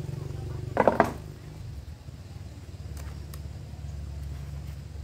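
A small engine running steadily with a low hum, with a short loud burst about a second in.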